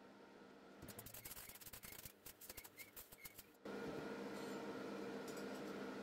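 MIG welding arc crackling and sputtering as cutlery pieces are welded, starting about a second in and lasting just under three seconds. It stops suddenly, and a steady hum follows.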